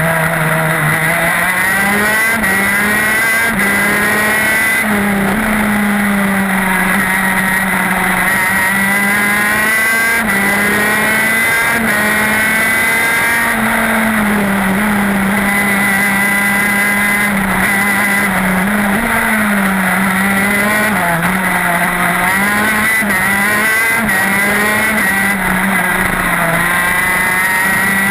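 TM K9B 125 cc two-stroke shifter kart engine at race speed, heard onboard. Its pitch climbs under acceleration and falls away into the corners, over and over, with no letup.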